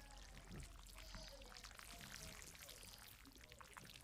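Faint rain patter, many small drops ticking, over a steady low hum.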